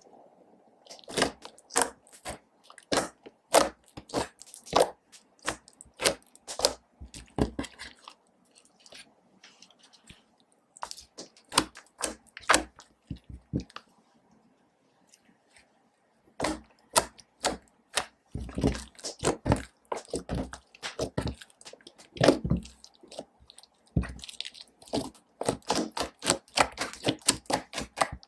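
Slime being squeezed and stretched by hand, giving irregular runs of sharp clicks and pops, with two short pauses.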